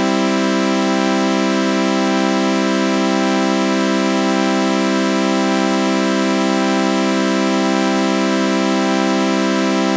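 A sustained synthesized sawtooth chord with a flanger effect, a steady buzzy organ-like drone. It holds unchanged, with a slow regular swirl about once a second.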